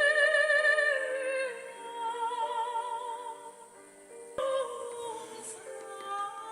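Slow music carried by high, held notes with a wide vibrato, stepping down in pitch about a second and a half in. A sharp click comes about four and a half seconds in.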